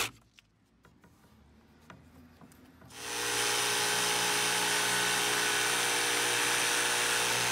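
A few faint clicks, then about three seconds in a cordless Milwaukee Fuel jigsaw starts and runs steadily, its blade cutting through a pre-primed wooden board.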